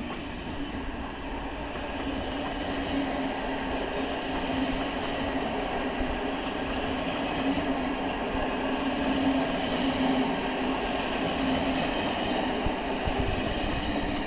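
Train running: a steady rumble with a low hum, growing somewhat louder through the first part before holding level.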